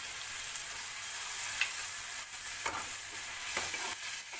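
Tomato and onion chunks sizzling steadily in butter in a metal pan, while a metal spatula stirs and scrapes them a few times.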